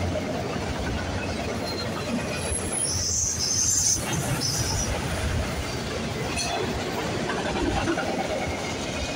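Enclosed autorack freight cars rolling past at track level, a steady rumble of steel wheels on rail, with a brief high-pitched wheel squeal about three seconds in.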